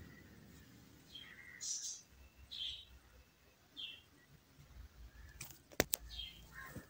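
A metal spoon stirring cooked rice in a metal pan. There are a few short, faint scrapes, then two sharp clinks of the spoon against the pan just before six seconds in.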